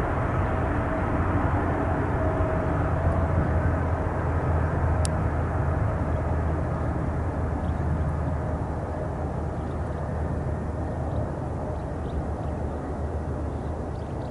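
Boeing 777F freighter's twin GE90 turbofans at takeoff thrust, heard from behind as the jet rolls away down the runway: a deep, steady rumble that slowly fades as it draws away. A steady hum tone in the first few seconds dies out.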